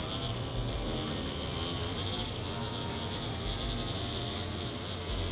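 Insects droning steadily in one high, constant band, with a low rumble underneath.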